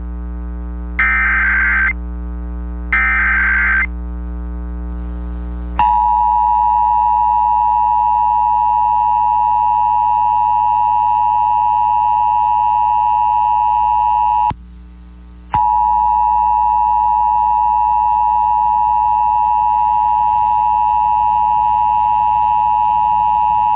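Emergency Alert System signal: the last two one-second warbling SAME header data bursts, then the steady two-tone EAS attention signal that begins about six seconds in and holds at a constant pitch, dropping out for about a second halfway through. It is the start of an emergency alert, over a low hum.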